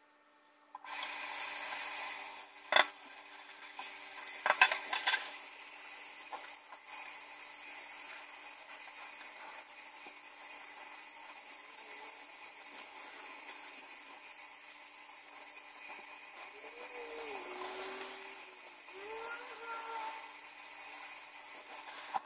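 Kitchen faucet water running into a stainless-steel sink as hair is rinsed under it. It comes on suddenly about a second in and cuts off at the very end. There are a few sharp knocks against the sink a few seconds in.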